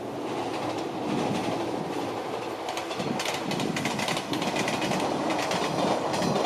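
Train passing, a steady rumble with its wheels clicking over the rail joints, the clicks coming thick and fast from about halfway.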